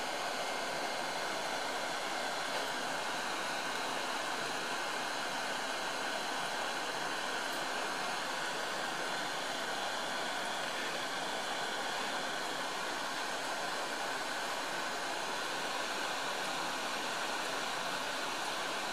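Hot air rework gun blowing steadily over a surface-mount chip: a constant rush of air with a faint fan whine in it. It is heating the chip from above to reflow the solder under its thermal pad.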